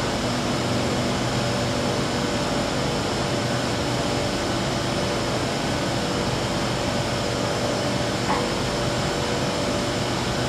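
Steady hum and hiss of air-conditioning and ventilation heard inside a metro train car standing at a platform with its doors open, with a few steady tones under it. A faint short tick about eight seconds in.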